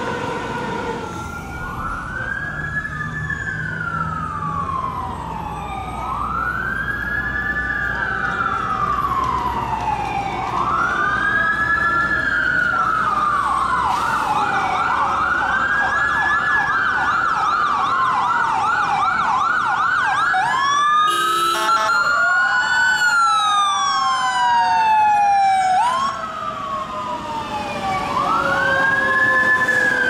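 Electronic emergency-vehicle sirens wailing, each sweep rising quickly and falling slowly every few seconds. Midway the siren switches to a fast yelp, and about two-thirds through there is a short horn blast. A heavy engine's low rumble sits under the first part.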